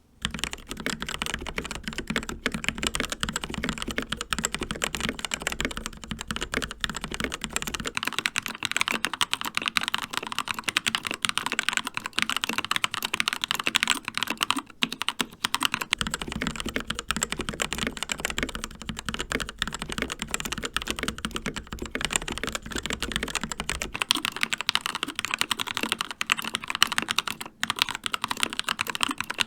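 Continuous fast typing on mechanical keyboards with linear red switches, alternating about every eight seconds between a CZC Reaper with TTC Red switches and a Keychron K2 with Gateron Red switches. The TTC Red stretches carry a low hum under the key clatter.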